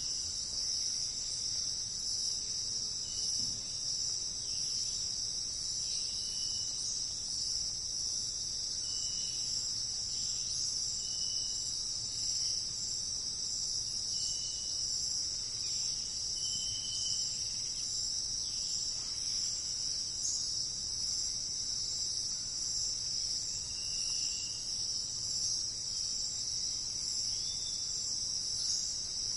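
Insect chorus, a dense steady high-pitched trill, with short high whistled notes every two or three seconds.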